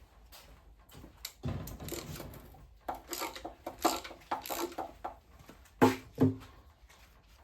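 Socket wrench working the engine's oil pan bolts: a run of quick clicks, with scattered handling rustle, then two sharp metal knocks close together about six seconds in.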